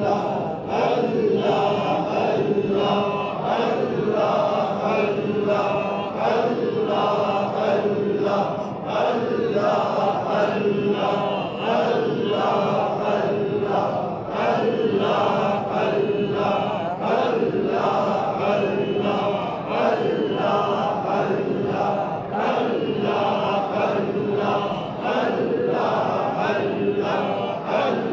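Men's voices chanting a short devotional phrase in unison, repeated over and over in a steady rhythm: Sufi dhikr of the Qadiriyya order.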